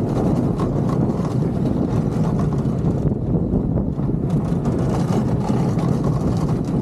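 Cobra's Curse spinning roller coaster running along its steel track, a steady rumble heard from on board.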